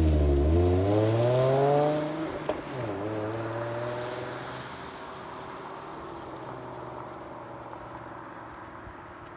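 Car engine revving, rising in pitch for about two seconds, then dropping back with a click and settling to a steady idle that fades out.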